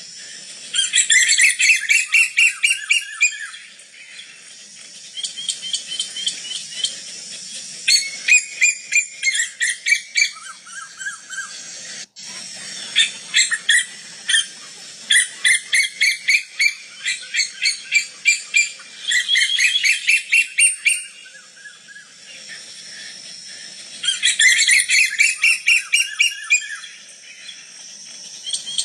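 Female koel calling: repeated runs of fast, shrill notes, each run two to three seconds long with short pauses between, over a steady faint high hiss.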